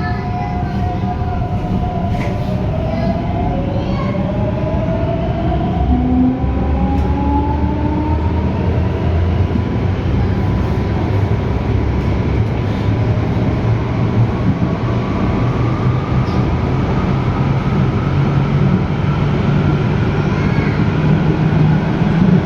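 Ansaldobreda-built Madrid Metro 9400-series electric train running on 1500 V DC, heard from on board. Its traction motors whine, rising in pitch as it accelerates over the first several seconds and again in the second half, over a steady rumble of the car on the track.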